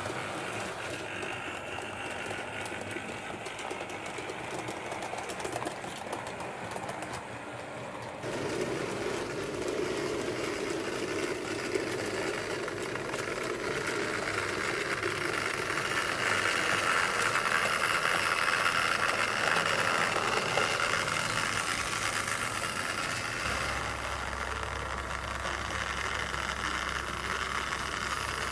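Model trains running: the steady whir of small electric locomotive motors and the wheels rolling on the track. The sound changes abruptly about eight seconds in, swells a little past the middle, and a low hum joins near the end.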